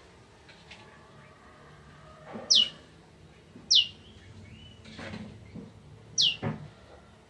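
Prenjak, a small prinia, calling: three loud, sharp high notes, each sweeping quickly downward in pitch, a second or more apart.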